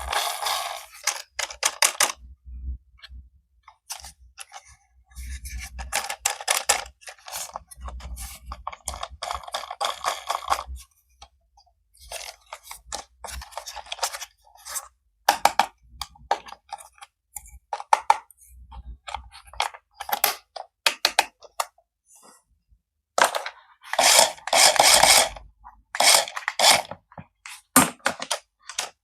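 Packaging being handled during a toy unboxing: irregular crinkling and scraping, with sharp clicks and knocks. A louder stretch of crinkling comes about three quarters of the way through.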